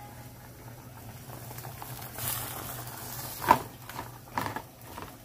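A pot of vegetables boiling, a hissing bubble that swells about two seconds in as leafy greens go in, over a low steady hum. A sharp knock comes about three and a half seconds in, followed by a few softer knocks.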